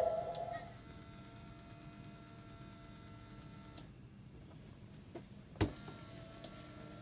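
The last notes of the jack-o'-lantern groundbreaker prop's song fade out, then its small electric motor hums faintly as it moves, with a single sharp click about five and a half seconds in.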